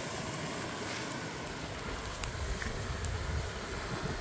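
Small wood campfire crackling steadily with a few faint pops, while wind buffets the microphone with a low rumble from about halfway through.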